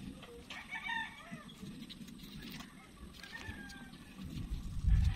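Chickens calling in the background: short pitched calls about a second in and again later. Near the end comes a loud low rumble on the phone's microphone.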